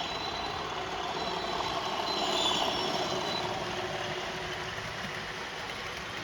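Model train running on a model railway layout: a steady mechanical running sound that swells slightly around the middle.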